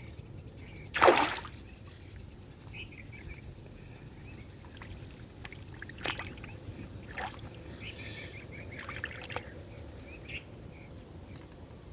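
River water splashing, one loud splash about a second in and smaller splashes later, with faint bird chirps in the background.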